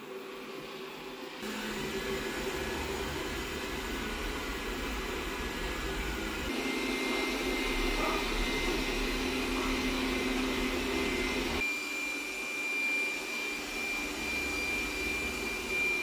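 360 S5 robot vacuum's suction fan running steadily, stepping through its suction modes from Quiet toward Powerful and Max. The sound gets louder about a second and a half in. A thin steady whine comes in about six seconds in and shifts higher near the end, where the low rumble drops away.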